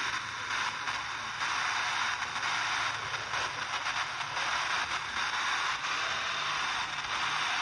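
Radio static from an off-air weather broadcast receiver: a steady hiss with a slight flicker and no voice.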